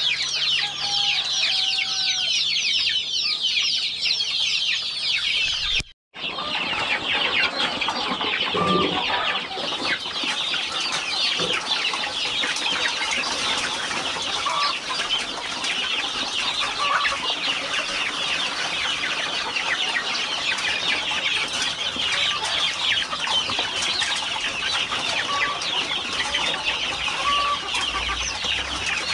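A flock of free-range chickens: a dense chorus of many short high-pitched peeping calls, with now and then a lower cluck. The sound cuts out for a split second about six seconds in.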